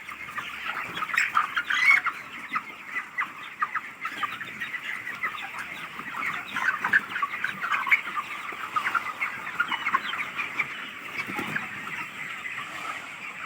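A large flock of chickens calling all at once: many overlapping short clucks and peeps that make a continuous chatter.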